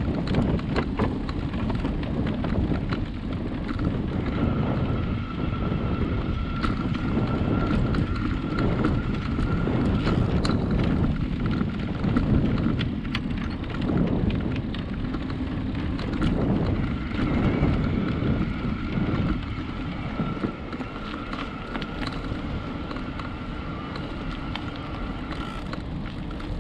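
Wind rumbling on a handlebar-mounted camera microphone as a bicycle rolls along a wooden boardwalk, the tyres clicking over the planks. A steady high tone sounds through much of it.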